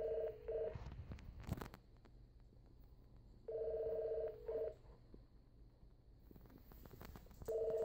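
Electronic telephone ringing: a steady two-note beep, a long burst followed by a short one, repeating about every four seconds, at the start, about three and a half seconds in, and near the end.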